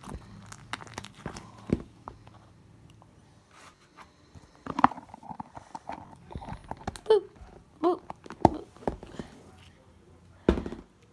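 Hands stretching and squishing slime close to the microphone: scattered sticky clicks and pops, with a few louder knocks from handling, the loudest about five, eight and ten seconds in.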